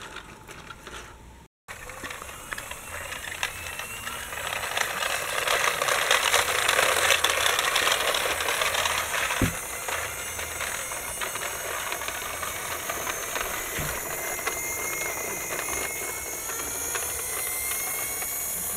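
Toy articulated trolleybus and tram rolling over rough concrete: a steady rattling hiss of hard plastic wheels on the ground with many small clicks, loudest a few seconds in.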